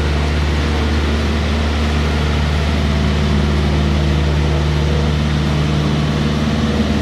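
Heavy rain and running water, a loud steady rush, with a steady low hum underneath.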